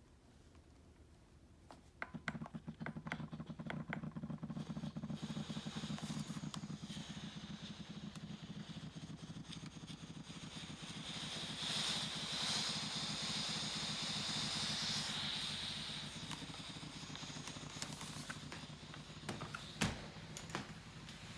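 Shark corded vacuum cleaner switched on about two seconds in and running with a steady motor hum and hiss, a higher whine coming in through the middle.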